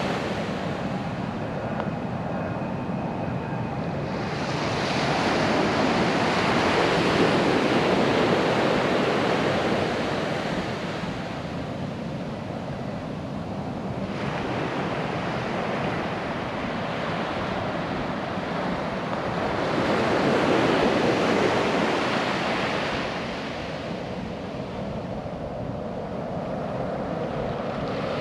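Ocean surf breaking and washing up a sandy beach, a steady rushing that swells and eases with the waves, loudest about five seconds in and again about twenty seconds in. Wind buffets the microphone underneath.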